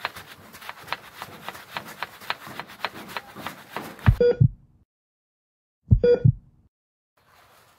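Motorcycle drive chain clicking rapidly as it runs through a chain-cleaning brush with the rear wheel turning. About four seconds in the sound cuts off to dead silence, broken by three loud thumps, each with a short beep, about two seconds apart.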